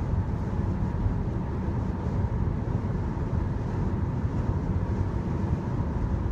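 Steady road and engine noise inside a car's cabin as it drives along a highway, with a faint steady high tone running through it.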